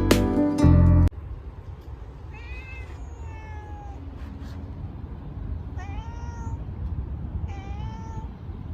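Background acoustic guitar music that stops abruptly about a second in, then three drawn-out animal calls, each rising and falling in pitch, over a steady outdoor background.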